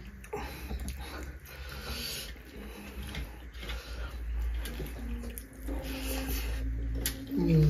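Close-up eating sounds: fingers mixing rice and curry on metal plates, with chewing and lip smacks as food is put in the mouth.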